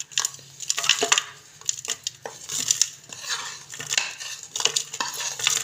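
Crumbled jaggery and spices being tipped and scraped off a plate into a plastic blender jar: irregular clicks, taps and scrapes of utensil on plate, with lumps dropping into the jar.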